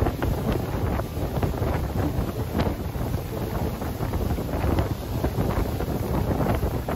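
Wind buffeting the microphone on the open deck of a moving cruise boat, in constant uneven gusts, over the low rumble of the boat underway.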